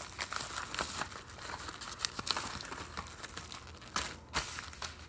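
Thin plastic packaging crinkling and crackling irregularly as it is handled, with a sharper crackle about four seconds in.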